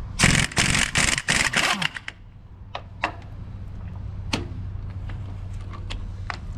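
Impact wrench hammering on a large bolt in several short, loud bursts over the first two seconds. A steady low hum with scattered metallic clicks follows.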